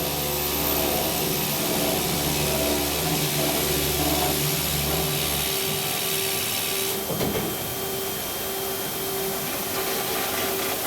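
EVERISING P-230B circular sawing machine running: a steady hiss over a machine hum, with the deepest part of the hum dropping away about halfway through.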